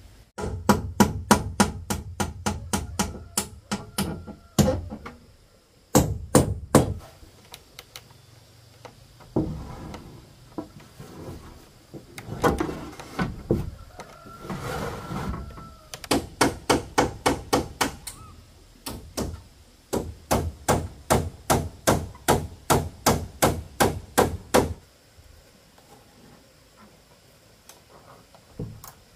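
Hammering in quick runs of about three or four blows a second, with short pauses between runs, while corrugated roofing sheets are fixed onto a timber-pole roof frame. The blows stop a few seconds before the end.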